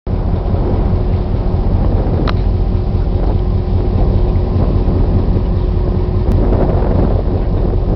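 Steady low rumble of a diesel locomotive engine running, with a brief high chirp about two seconds in.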